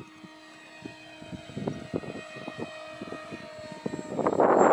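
Electric motor and propeller of a foam RC MiG-29 model (2450 kV brushless motor, 5-inch prop) whining steadily as the plane flies, with a fainter high whine that slowly falls in pitch and short thumps of wind on the microphone. About four seconds in, a much louder rushing noise takes over.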